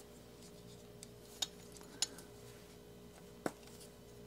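Hand tools working on a motorcycle engine's breather hardware: a few small, sharp metallic clicks and taps spaced about a second apart, over a faint steady hum.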